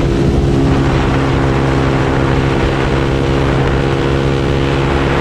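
Bajaj Pulsar NS motorcycle's single-cylinder engine and loud exhaust while riding at a steady throttle, the note holding at one even pitch.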